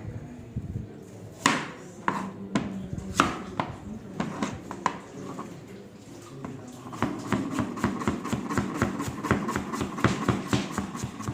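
Kitchen knife chopping vegetables on a cutting board: a few separate cuts at first, then fast, even chopping strokes from about two-thirds of the way in.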